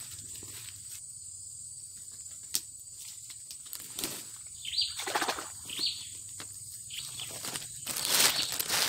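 Quiet forest ambience with a steady high insect whine. Two short falling bird chirps come in the middle, then dry leaves and palm fronds rustle near the end.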